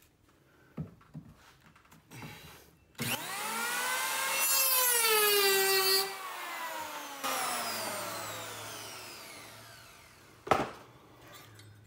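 A corded Bosch electric hand planer starts up with a rising whine. It cuts into the end of a wooden ceiling joist for about a second and a half, its pitch sagging under load, scooping a shallow recess so a joist hanger will sit flush. Then it is released and winds down with a slowly falling whine, and a sharp knock comes near the end.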